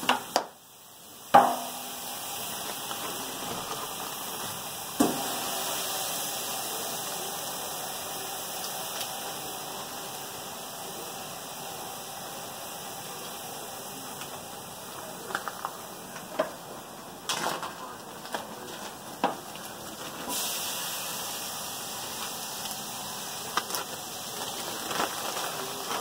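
Chicken pieces frying in hot oil in a stainless-steel tub fryer: a steady sizzle with scattered small clicks and pops. About five seconds in there is a sudden louder burst of sizzling as a fresh piece goes into the oil.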